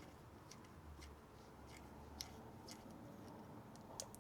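Faint, scattered small metallic clicks of a hex key working the cylinder head bolts out of a model glow engine, with a sharper click near the end.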